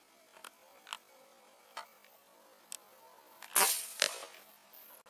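A PCP air rifle shot about three and a half seconds in: one sharp crack, then a second, shorter crack about half a second later. A few faint ticks come before it.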